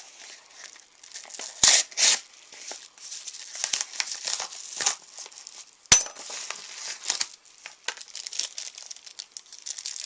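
A mailed package being opened and its packaging handled: continuous crinkling, with two loud tearing rips about two seconds in and a sharp snap about six seconds in.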